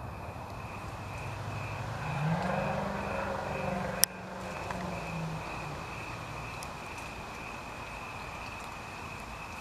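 Night insects chirping in a steady, evenly pulsing high trill, while a low vehicle hum swells and fades between about two and five seconds in. A single sharp click about four seconds in.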